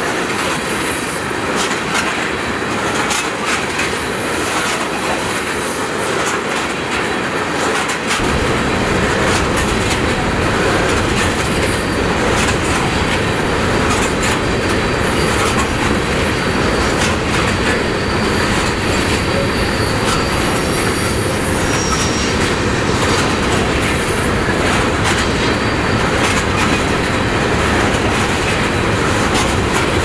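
Tank cars of a freight train rolling past: a steady clatter of wheels over the rail joints, with high wheel squeal coming and going. About eight seconds in, the low rumble grows heavier and stays that way.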